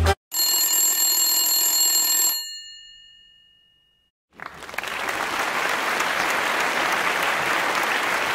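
A bell-like ring with several tones, cut short after about two seconds while its higher tones fade out. Then a short silence, and steady applause from about four seconds in.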